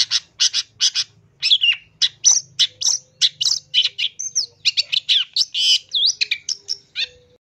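Long-tailed shrike singing a fast, unbroken run of short, harsh chattering notes, about four or five a second, with a few whistled slurs mixed in; the song stops abruptly near the end.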